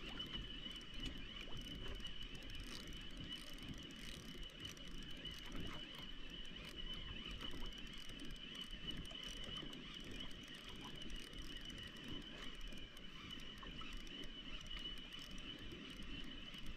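Steady background noise aboard a small fishing boat at sea: a low rumble and hiss with a thin, steady high whine over it.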